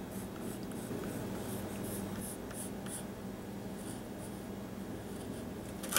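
Pencil drawing a line on thin plywood: soft scratching in short strokes, mostly in the first half.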